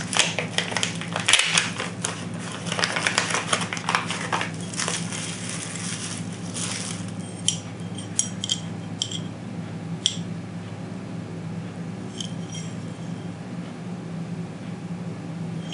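Plastic wrapping crinkling as a pair of checkered aluminum pistol grip panels is unwrapped, then scattered light metallic clinks with a short ring as the aluminum panels tap together, a cluster in the middle and a few more later.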